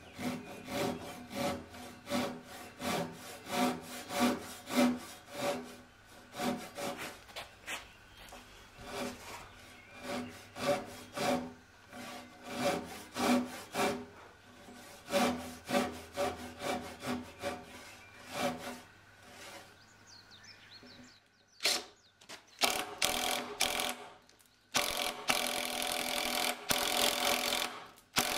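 Japanese pull saw cutting into a Japanese pine (matsu) beam in steady back-and-forth strokes, about one and a half a second. A few short sharp sounds follow, then near the end a cordless drill runs steadily, boring into the pine.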